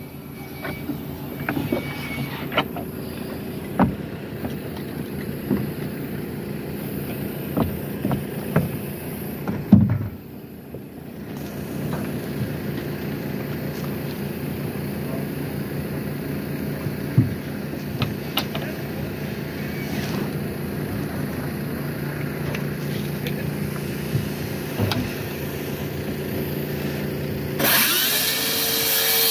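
A steady machine hum with scattered knocks and clicks as OSB sheathing is measured and marked. Near the end, a cordless circular saw spins up and begins cutting through the OSB with a loud, high whine.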